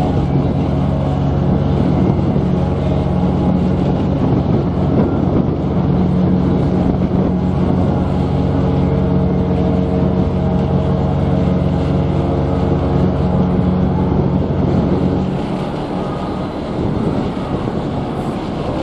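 Cruise ship's horn sounding one long, low blast that cuts off about 15 seconds in, followed by wind noise on the microphone.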